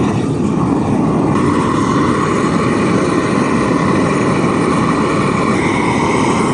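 Propane weed-burner torch (flamethrower) burning steadily, a loud even rush of flame, as it chars a stripped log.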